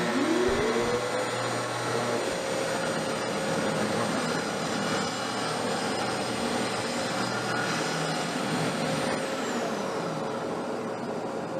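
Festool TS75 plunge track saw running with its CT36 dust extractor while cutting 3/4 inch plywood. A steady whine rises in pitch as the motor comes up to speed over the first second or so and then holds. A high whine drops away about nine seconds in, and the lower whine starts to wind down at the end.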